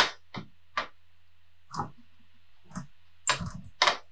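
A metal fork clicking and scraping against a small glass bowl while scooping salad: a handful of short, sharp clicks at uneven intervals, the loudest at the start and near the end.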